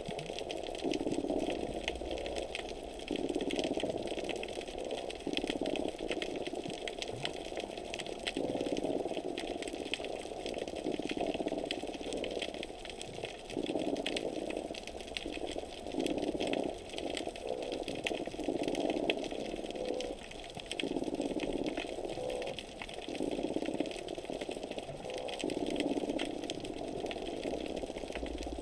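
Underwater ambience heard through a submerged camera housing: a constant fine crackle over a low rumble, with a mid-pitched rushing noise that swells and fades every couple of seconds.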